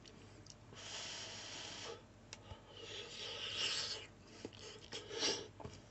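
A person eating a bite of boiled egg: soft rasping breaths through the nose while chewing, three of them, with a few faint clicks in between.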